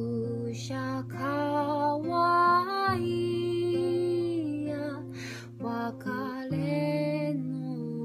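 Background music: a slow melody of long held sung notes over sustained low bass notes, the bass changing pitch about three-quarters of the way through.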